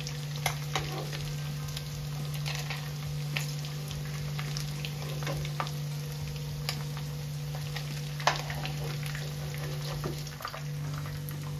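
Fish pakoras deep-frying in hot oil over a high flame, giving a steady crackling sizzle. Scattered sharp metal clinks come from a steel slotted spoon and a wire spider strainer as the pieces are scooped out, the loudest about half a second in and about 8 seconds in. A steady low hum runs underneath.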